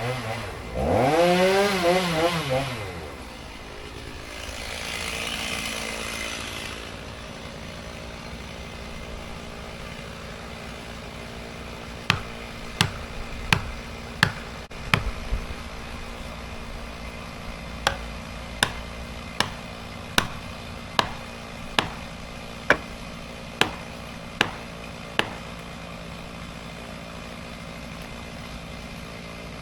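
Chainsaw at full throttle for the first couple of seconds, then its pitch sinks as it drops back and settles into a steady idle. From about twelve seconds in, sharp clicks repeat about once every three quarters of a second over the idle.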